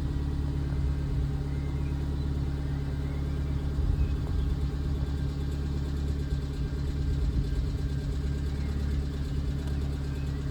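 Suzuki Swift Sport's M16A four-cylinder engine idling steadily at its raised idle after a cold start. The owner suspects a top-end tick from valve clearances on its shim-on-bucket valves that want adjusting, though he doubts the tick can be heard yet at this high idle.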